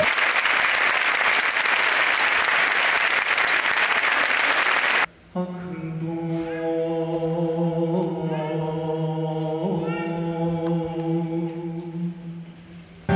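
Audience applause, cut off about five seconds in. A single male voice then chants slow, long-drawn notes with small melodic turns, growing fainter near the end.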